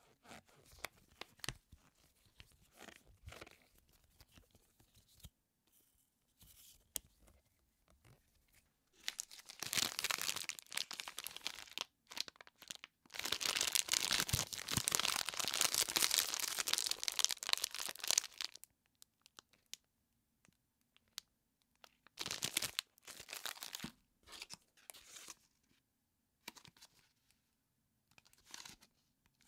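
Quiet handling of a rubber band at first, then the plastic wrapper of an energy bar crinkled and torn open in a long, loud stretch in the middle. Shorter crinkles of a plastic-wrapped beef stick follow near the end.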